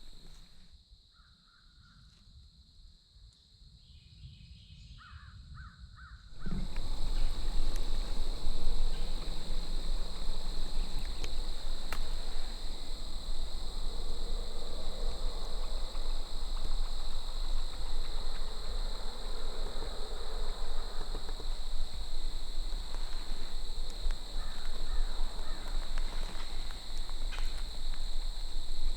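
Outdoor woodland ambience: crows cawing over a steady, high-pitched insect chorus. The sound jumps suddenly louder about six seconds in.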